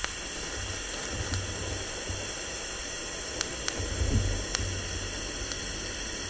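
TIG welding arc from a Unimig Razor 200 AC/DC TIG welder, hissing steadily as a bead is laid on a steel plate. A low hum comes and goes under the hiss, with a few sharp ticks in the middle.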